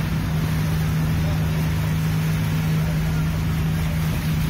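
Passenger ferry's engine running steadily, heard from on board: a constant low drone under the rush of water along the hull.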